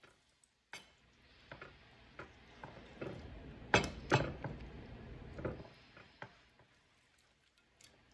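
Hands rubbing salt into a raw beef steak on a plate and lifting it to turn it over: soft rustling handling noise with scattered clicks and clinks against the plate, the loudest pair about four seconds in.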